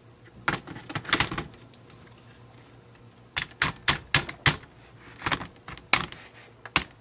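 Sharp metal clicks and knocks from an AR-15 rifle as the upper receiver is seated on the lower and the takedown pins are pushed in. A few clicks come about a second in, then a quick run of them about three and a half to four and a half seconds in, and more single clicks near the end.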